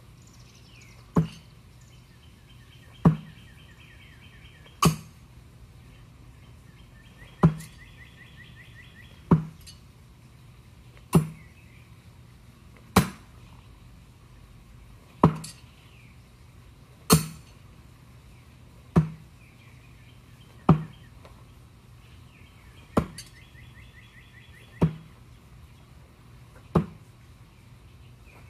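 Throwing knives striking a wooden target board one after another, a sharp thunk about every two seconds, about fourteen in all. A rapid insect buzz comes and goes in between.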